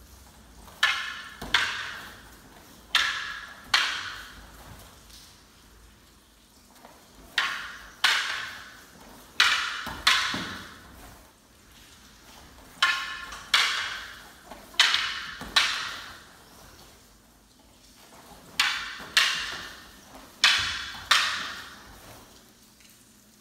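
Wooden jo staffs clacking together in a partnered kata. There are about sixteen sharp strikes, most in quick pairs a few seconds apart, and each rings briefly.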